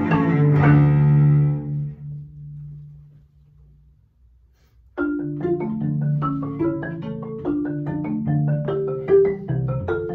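A cello and a marimba finish a phrase together, the cello's low bowed note held and dying away. After a pause of about a second, the marimba plays alone, with quick, evenly spaced strokes of four yarn mallets.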